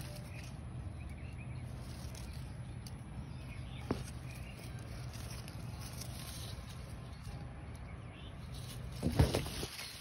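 Phone handling noise over a low steady rumble, with a single click about four seconds in and a loud rustle of leaves against the phone near the end, lasting about half a second, as it is pushed into the rainforest plum tree's foliage.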